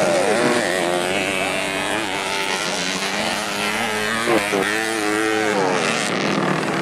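Several modified underbone race motorcycle engines revving hard around a dirt track, their pitches overlapping and rising and falling with throttle and gear changes. A brief louder peak comes about four and a half seconds in.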